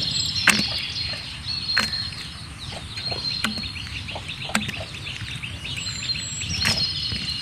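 Small birds chirping and twittering continuously, with a few short whistled notes, over a low steady rumble. A handful of sharp clicks or knocks come every second or two.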